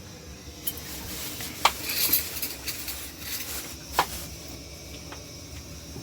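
Kitchenware clinking and knocking as dishes are handled: two sharp clinks, one under two seconds in and one about four seconds in, with a few fainter knocks and some rustling between.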